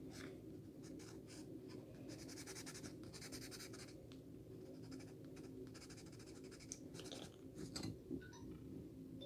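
Pencil scratching on paper in quick, faint strokes, with a few light taps near the end.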